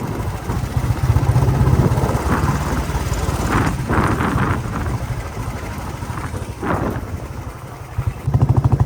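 Royal Enfield Bullet motorcycle's single-cylinder engine running on the move, a steady low thumping beat that gets louder and stronger about eight seconds in.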